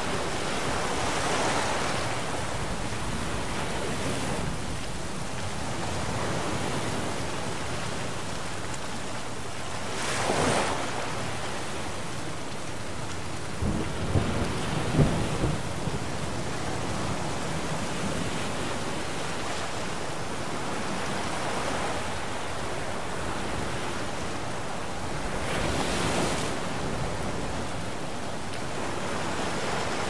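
Stormy sea: a steady rush of wind and rough surf, with waves surging and breaking about ten seconds in and again near the end. About fourteen seconds in comes a short, crackling clap of thunder.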